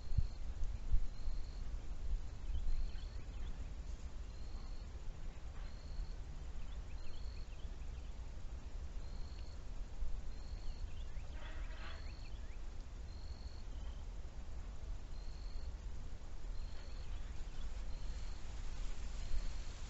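Outdoor ambience: a short high chirp repeating evenly about every second and a half, over a low wind rumble on the microphone, with a brief burst of other calls about halfway through.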